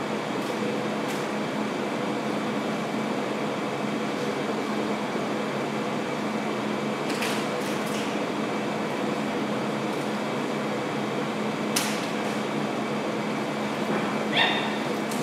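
Steady air-conditioner hum filling the room, with a low drone underneath. A few faint clicks come around the middle, and a short squeak near the end.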